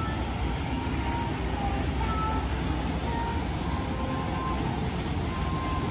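Steady outdoor background noise, mostly a low rumble like distant traffic, with faint short high tones now and then.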